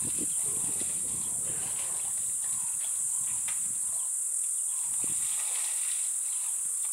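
Steady, high-pitched chorus of insects shrilling in the bush, with faint, indistinct low rustling in the first few seconds.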